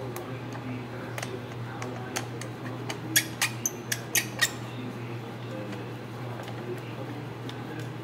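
Screwdriver working the screws of a Makita 2414 chop saw's plastic switch handle: a quick run of about six sharp clicks around three to four seconds in, over a steady low hum.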